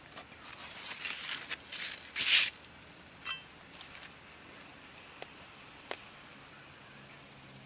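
Rustling and crinkling of a large fresh leaf and dry forest-floor litter as hands handle them, in short scattered bursts, the loudest about two seconds in. A few short high chirps sound in the background.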